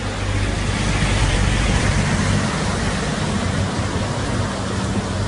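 Steady rush of floodwater along a street, with a vehicle engine running low underneath.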